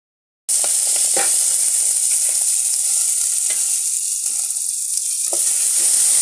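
Corn kernels sizzling in hot oil in an aluminium pot, a loud steady hiss that starts abruptly about half a second in, with a few knocks of a wooden spatula against the pot as the kernels are stirred.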